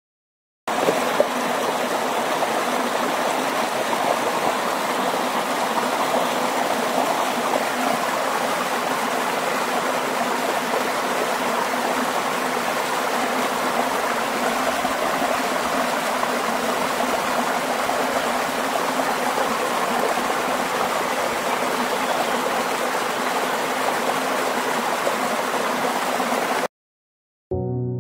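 Steady rushing noise like running water, starting abruptly just under a second in and cutting off suddenly near the end.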